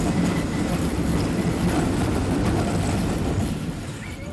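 Wicked Twister suspended steel coaster train racing along its track, heard on board as a loud steady rumble and rush of wind that eases off near the end.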